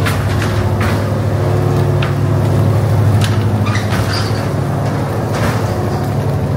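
An engine running steadily at a constant pitch, with a few brief sharp knocks over it.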